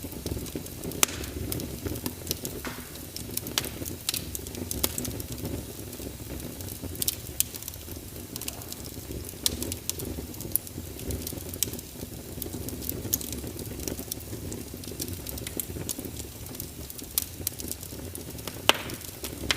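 Fireplace fire crackling, with frequent sharp pops and snaps over a low steady rumble of burning.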